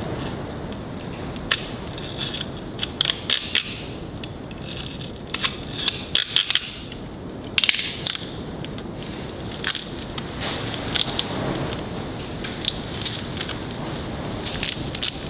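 Plastic wrap and tape crinkling and tearing in irregular bursts with sharp clicks as they are cut and peeled off a truck's steer-axle spindle. Under it runs a steady low rumble of high wind buffeting the building.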